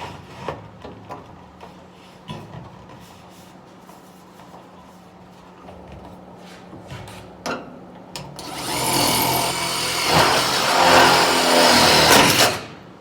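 Milwaukee M12 cordless rivet tool's motor running for about four seconds, a little past halfway in, setting a blind rivet in sheet-metal flashing, and then cutting off sharply. Before that there are only light clicks and knocks from handling the parts.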